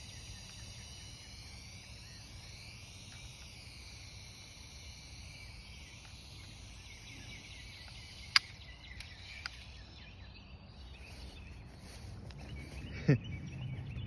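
Steady outdoor ambience with a faint, high, wavering hiss. A sharp click comes about eight seconds in, a softer one a second later, and a short, loud sound falling in pitch near the end.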